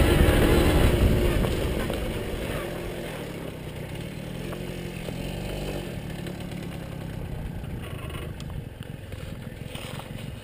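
A 1982 Tomos A3MS moped's small two-stroke engine running under throttle. About two seconds in the throttle is eased off, and the engine settles to a quieter, lower-revving beat as the moped rolls slowly over gravel.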